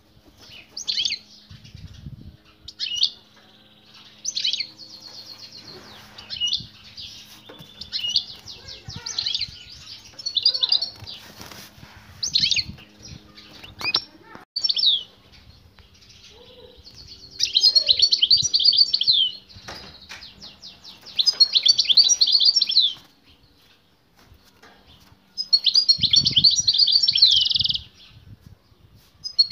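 European goldfinch singing: phrases of rapid, high twittering notes with short pauses between them. The longest and loudest phrases come in the second half.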